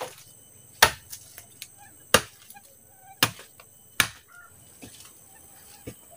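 Sharp knocks of wood being struck: four strong blows about a second apart with lighter taps between, as wooden poles are worked into a simple shelter frame.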